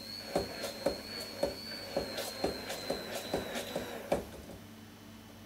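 Stick blender running in a stainless-steel jug, emulsifying mayonnaise: a steady high whine with repeated knocks about twice a second as the blender head strikes the jug. The motor cuts off about four seconds in, followed by one last knock.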